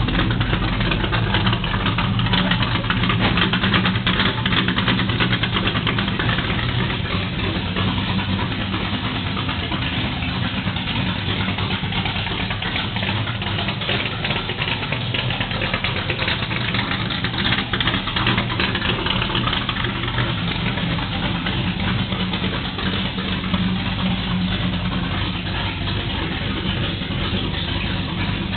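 A 1987 Chevrolet Camaro Z28's V8 engine idling steadily, with no revving.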